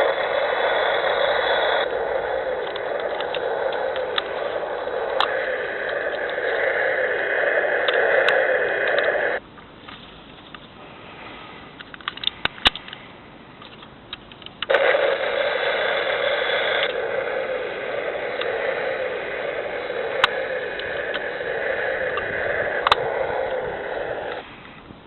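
Thunderbird 1 toy's electronic rocket-engine sound effect played through its small, tinny speaker, a rushing noise that runs about nine seconds, stops, and after a few clicks plays again for about another ten seconds.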